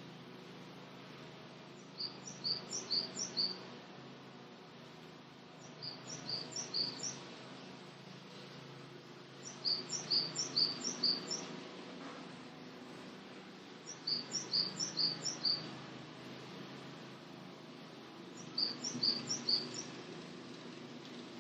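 Japanese sparrowhawk calling in five quick bouts, each a rapid string of six to eight sharp, high notes lasting about a second and a half, repeated roughly every four seconds. A steady low background hum runs underneath.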